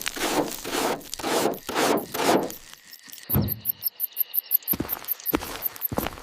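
Repeated scraping strokes, about two a second, followed by a run of quick light ticks with a few dull thumps.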